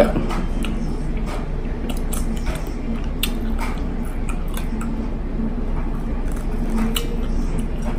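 Close-miked eating sounds: wet chewing of crunchy sweet pepper and rice, with scattered small clicks and squishes as fingers pull a mini sweet pepper apart.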